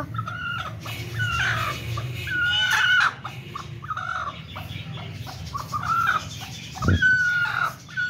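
Domestic chickens clucking, with many short calls one after another, and a single sharp knock near the end.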